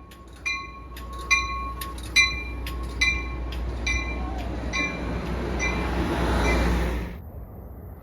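Railroad grade-crossing bell dinging about once every 0.8 seconds while the rumble of an approaching train builds up. The sound cuts off abruptly about seven seconds in.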